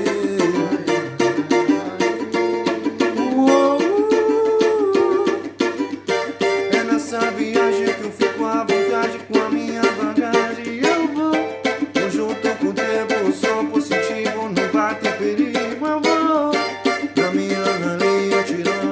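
Music: a song with a small plucked string instrument strummed over steady percussion, with a singing voice.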